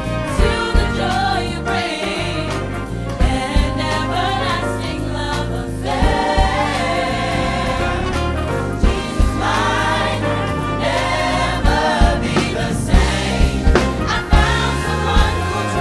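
Gospel choir singing in harmony over a live band of keyboards, guitars and drums, with sharp drum hits and a steady bass line under the voices.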